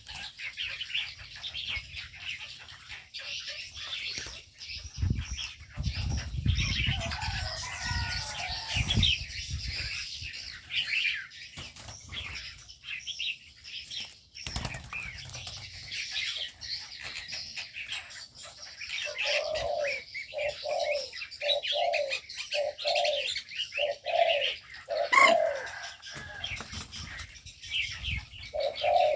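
Aviary birds: wings flapping in bursts about five to ten seconds in, spotted doves cooing in a run of repeated low notes from about nineteen seconds on, and small birds chirping throughout.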